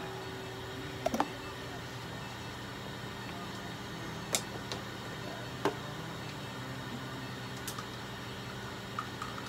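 Steady low electrical hum of running equipment, with a few scattered sharp clicks and taps.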